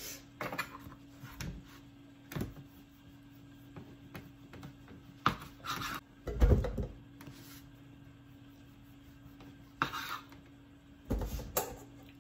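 Bread dough being cut and handled on a wooden cutting board: scattered knocks and rustles, with one heavy low thump about six and a half seconds in, over a steady low hum.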